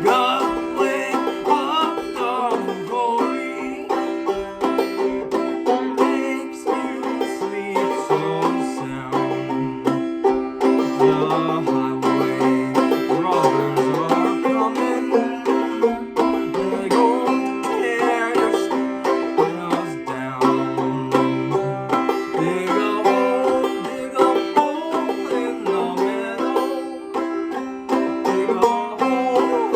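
Five-string banjo played clawhammer style: a steady stream of quick plucked notes and brushed strums over ringing open drone strings, with a lower melody line moving beneath.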